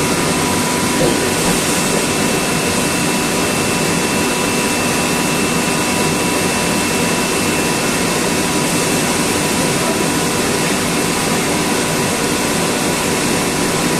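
Screw air compressor running: a loud, steady machine noise with a constant faint whine in it.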